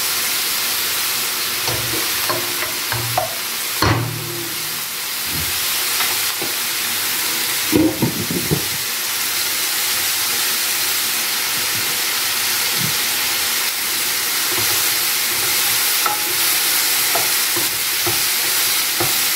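Sliced mushrooms sizzling steadily as they fry in oil in a frying pan, stirred with a wooden spoon. A couple of brief cookware clatters come about four and eight seconds in.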